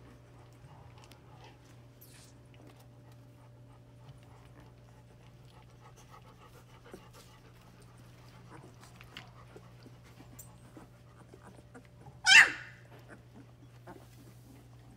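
Labrador Retriever puppies panting and snuffling quietly, with faint scattered scuffs, over a steady low hum. About twelve seconds in comes one short, loud, sharp sound.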